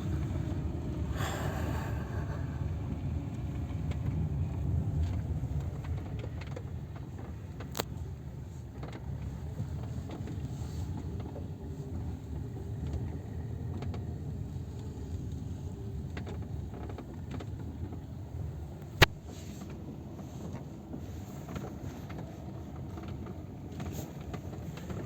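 Cabin of a nearly new Lada Granta driving on an uneven road: a steady rumble of road and engine, with creaks and squeaks from the front and rear doors, which the owner blames on poor factory assembly. Two sharp knocks stand out, a louder one about two-thirds of the way through.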